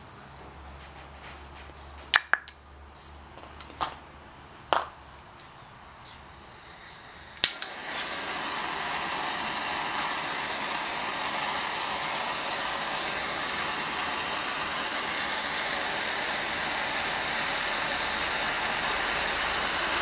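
A few sharp clicks and knocks of small parts and tools handled on a workbench, then about seven seconds in a steady rushing noise starts and carries on.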